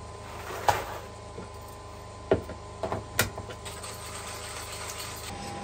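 Coffee beans poured into a hand coffee grinder, then a few sharp clicks and knocks as the grinder's lid and crank handle are fitted, followed by lighter ticking, over a steady background hum.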